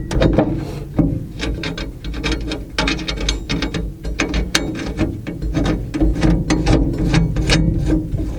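Hand socket ratchet clicking in quick runs of strokes, with short pauses between them, as bolts are tightened while reassembling a wood chipper's hood hinge.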